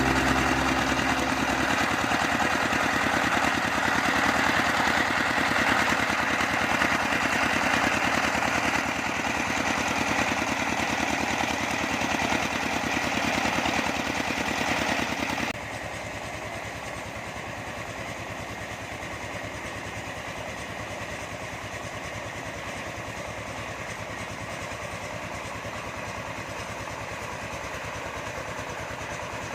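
Small engine running steadily. Its sound drops abruptly in level about halfway through, then carries on more quietly.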